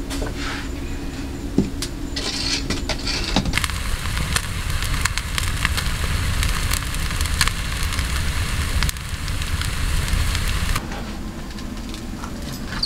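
Wood fire crackling, with scattered sharp pops.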